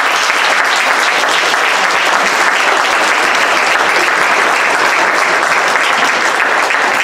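A large crowd applauding in a sports hall, with dense, steady clapping.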